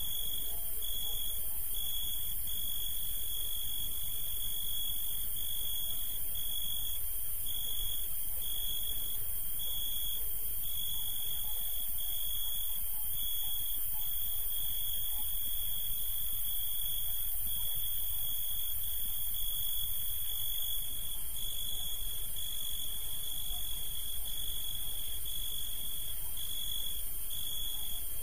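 Cricket trilling steadily on one high pitch, broken by brief gaps about once a second, over a low hiss.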